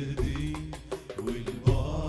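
Live Arabic devotional song: male voices singing a winding melody over frame drums and a hand drum, with a heavy drum stroke near the end.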